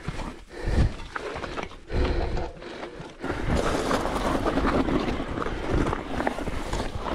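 Mountain bike going over a rough, rutted rocky trail: irregular knocks and thumps from the tyres and frame, becoming a louder, continuous rattle about three seconds in, with wind on the microphone.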